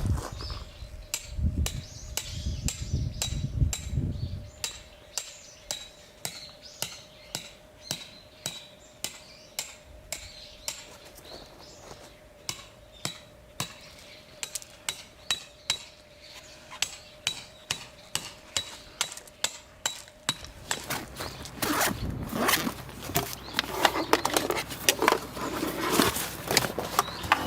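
A long, steady series of sharp knocks, about one and a half a second. About three-quarters of the way in, a busier clatter of knocks and rustling takes over.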